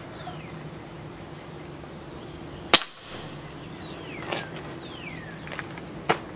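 A single sharp shot from a Maruzen L96 bolt-action spring airsoft sniper rifle about three seconds in, with a fainter click near the end. Short high whistles, falling in pitch, repeat several times in the background.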